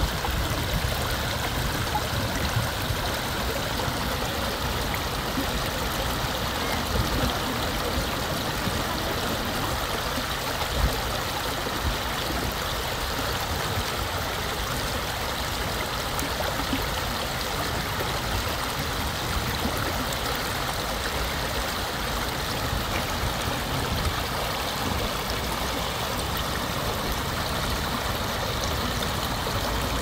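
Steady rush of flowing water from a mountain stream, even and unbroken.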